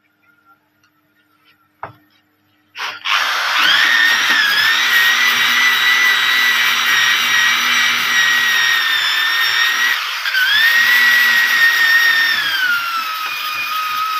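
Electric drill with a wire wheel brush switching on about three seconds in and running at speed on a steel sheet: a steady high motor whine over rough brushing noise. The pitch dips briefly twice and sags lower near the end.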